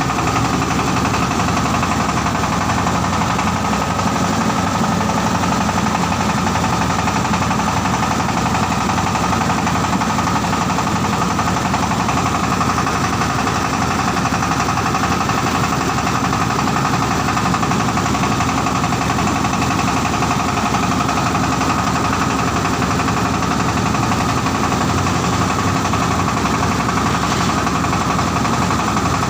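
Shark diesel engine of a mobile rice huller running at a steady speed, loud and unchanging.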